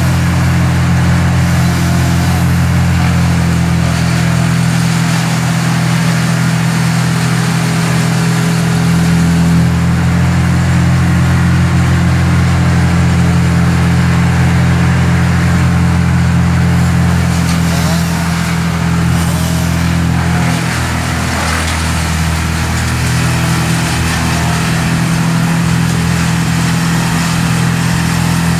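A large engine running steadily at a low, even pitch, holding the same speed throughout.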